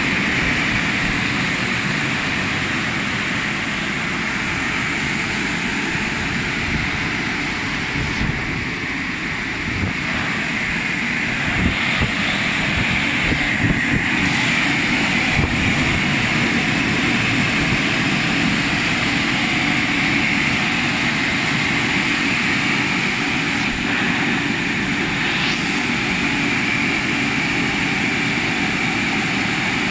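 The rollover car wash's blower dryers running, a steady loud blast of air over the car body as the machine dries it.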